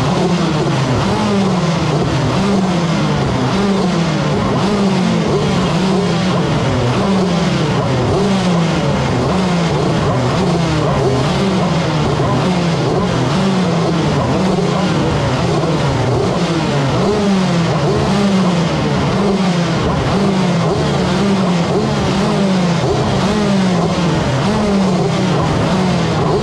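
Shifter kart engines running while the kart stands still, loud and steady, their pitch sliding down again and again about once a second.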